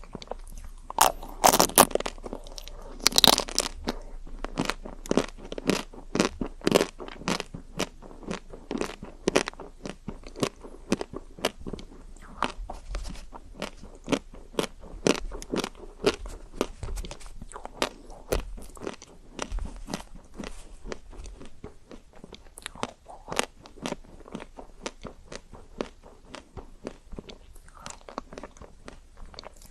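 Close-miked eating of chocolate-coated ice cream: a few loud crunching bites through the hard chocolate shell in the first few seconds, then steady chewing with many small crackles.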